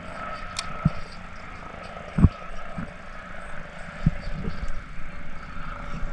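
Scattered dull knocks and bumps on a kayak, the loudest about two seconds in, over a faint steady hum.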